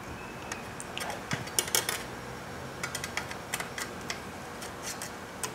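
Irregular light metallic clicks and ticks as the thin sheet-metal tabs of an air-spring heat shield are bent with channel-lock pliers.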